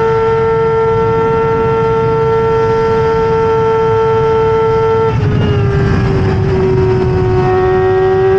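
BMW S1000RR inline-four engine in a Stohr WF1 sports racer running hard at high revs, its pitch held steady for about five seconds. It then drops a step as it shifts up a gear, and the pitch begins climbing slowly again under acceleration.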